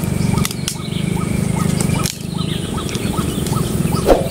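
Steady outdoor chorus of animal calls: a low, rapidly pulsing drone under a short chirp repeated about three times a second, with a brief knock near the end.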